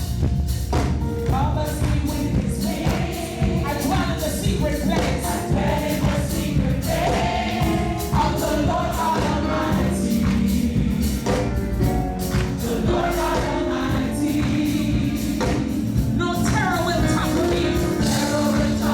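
Live gospel worship music: a choir singing over a band, with a steady beat and tambourine.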